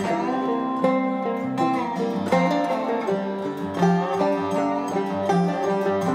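Background instrumental music with plucked strings playing a running melody.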